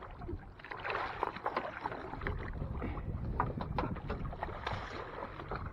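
A big catfish thrashing and splashing at the boat's side as it is gripped and hauled out of the water, with many short splashes and knocks through the middle seconds. A steady low hum of the boat's motor runs underneath.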